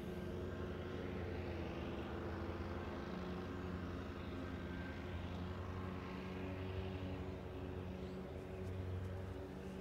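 A steady low hum made of several held tones, swelling and easing slightly, with no clear start or stop.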